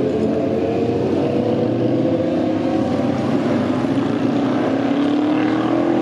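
A loud motor engine running steadily, cutting in suddenly and its pitch creeping slowly upward.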